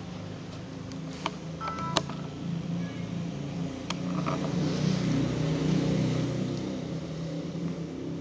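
Dogs play-wrestling: a low, rough growling that runs on and swells louder in the second half, with a few sharp clicks in the first half.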